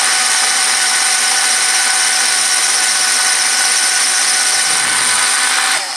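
Electric drill running at a steady speed, drilling a screw hole in a wooden block, and stopping near the end.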